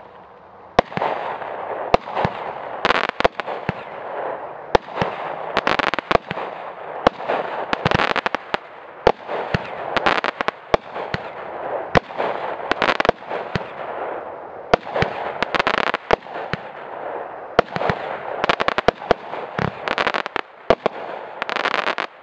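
A Mad Ox Kraken 20-shot firework cake firing shot after shot, with sharp launch and burst reports coming about once or twice a second. A constant rough hiss runs between the reports.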